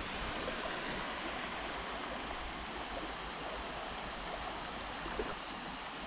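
Steady rush of a small waterfall's falling water, even and unchanging, with one faint tap about five seconds in.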